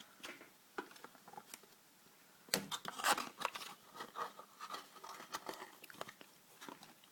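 Packaging being handled as a puzzle cube is taken out: irregular crinkling and rustling with light clicks, loudest in a burst about two and a half to three and a half seconds in.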